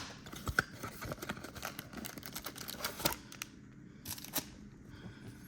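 Trading cards and card packs being handled on a table: scattered light clicks and taps, with a short cluster of clicks about four seconds in.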